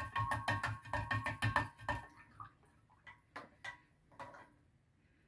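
Spoon stirring briskly in a large glass jar of brine, knocking against the glass about six times a second with a faint ringing of the jar, while lye is mixed in to raise the pH. The stirring stops about two seconds in, followed by a few light scattered knocks.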